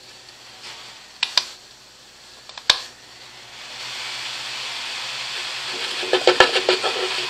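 A couple of sharp clicks, then a steady electric whir builds from about three seconds in and holds: a small clip-on fan and the drill press's motor running. Near the end a rougher, fluttering whine joins in.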